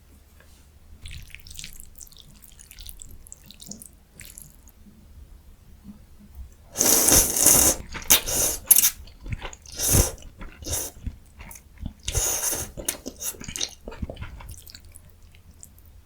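Close-miked eating: soft chewing at first, then several loud wet slurps from about seven seconds in, typical of slurping egg ramyun noodles and broth.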